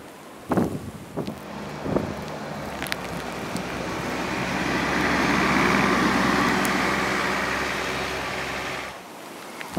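A motor vehicle drives past on a snowy street: its engine hum and road noise build up over a few seconds, hold, then cut off abruptly near the end. A few short knocks come in the first seconds.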